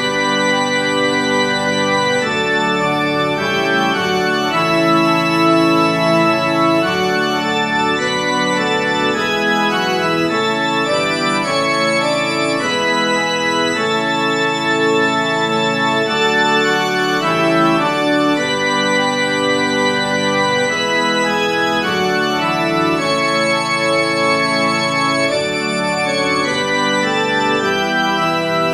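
Organ postlude: full, sustained chords moving steadily from one to the next every second or two.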